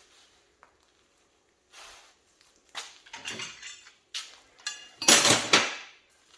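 Metal hand tools clanking and clinking together in several separate clatters, some with a brief metallic ring. The loudest clatter comes about five seconds in.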